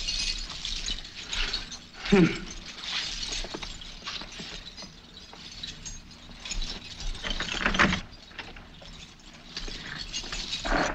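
A long chain of many metal keys jingling and clinking as it is pulled out and handled, an irregular rattling that goes on and off.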